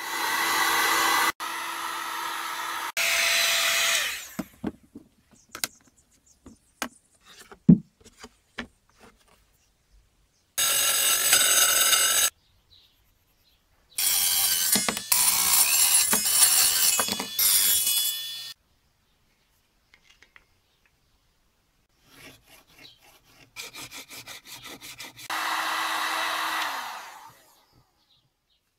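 Workshop tool sounds cut together: an Einhell electric heat gun blowing steadily at the start and again near the end, and a small bench saw running and cutting a PVC strip in the middle. Short knocks and handling clicks fall between them.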